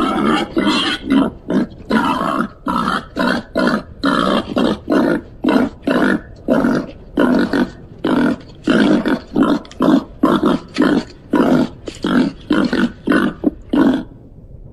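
Babirusa calling with a rapid run of short grunts, about two or three a second, that stops near the end.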